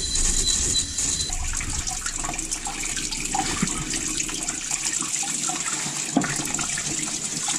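Garden-hose spray nozzle blasting water into the drain-plug hole of a Dodge 5.9 Magnum V8 engine block, with a steady rush and spatter of water and loosened rust sludge pouring back out. This is a coolant-system flush clearing deposits from the block's water jacket.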